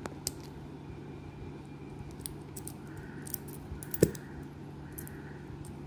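Faint clicks and scrapes of a watch's metal mesh strap and sliding clasp being handled, with one sharper click about four seconds in, over a steady low hum.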